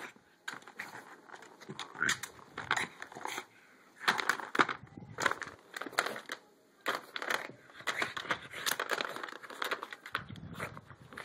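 Plastic cat track toy clattering and rattling irregularly as a dog noses and paws at it, knocking the toy and the ball inside it around on the carpet.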